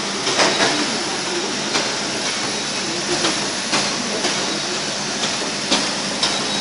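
Jelly candy flow packing machine running: a steady mechanical whir and hiss with sharp clicks from its moving parts at uneven intervals.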